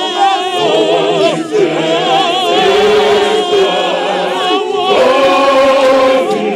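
Large mixed church choir singing a gospel hymn in full harmony, the voices wavering with vibrato. A new long held chord begins about five seconds in.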